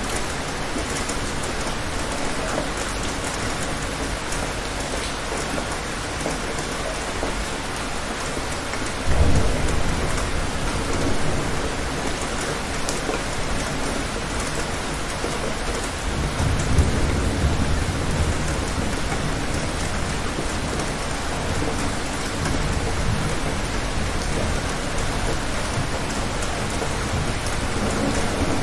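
Thunderstorm: steady rain with low rolls of thunder. One rumble breaks in suddenly about a third of the way in, a longer one swells a little past halfway, and another builds near the end.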